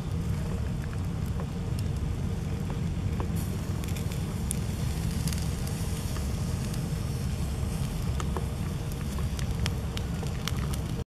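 Small wood fire crackling under a fish roasting on a stick skewer: scattered sharp pops and ticks over a steady low rumble.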